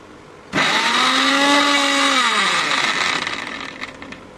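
Electric mixer grinder with a steel jar grinding dry-roasted sponge gourd flowers in one short pulse. The motor starts suddenly about half a second in and runs with a steady whine. It is switched off a little under two seconds later and winds down with falling pitch.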